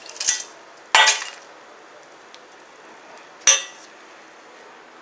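The last ice cubes tipped from a ceramic mug clatter into a stainless-steel saucepan. Then come two sharp metallic clinks with a short ring, one about a second in and another about two and a half seconds later, as the saucepan of ice is moved.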